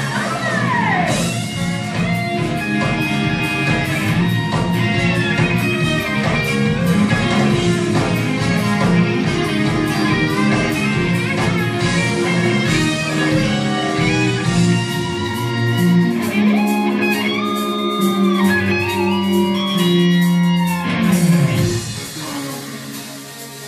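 Live band playing with electric guitar, bass and drums on a steady beat. The music drops away sharply near the end.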